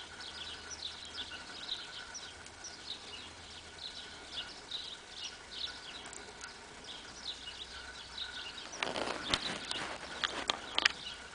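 Small birds chirping, short high calls several times a second. About nine seconds in comes a short run of sharp cracks and rustling as a hawfinch husks sunflower seeds in its bill.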